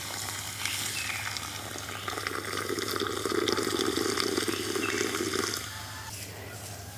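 Milk tea poured in a thin stream into a hot clay pot set in embers for tandoori chai, splashing and frothing up in the pot. The pour grows louder in the middle and stops about six seconds in.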